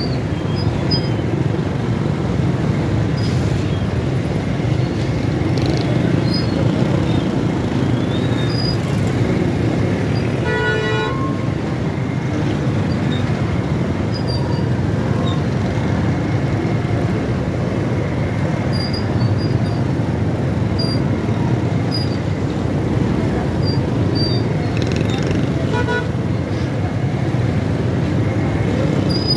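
Steady engine and road noise of a ride through street traffic. A vehicle horn honks briefly about eleven seconds in, and again more faintly about twenty-five seconds in.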